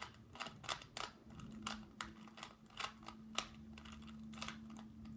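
White 3x3 plastic speed cube being turned by hand, its layers clicking and clacking quickly and irregularly, several clicks a second. A faint steady hum sets in about a second and a half in.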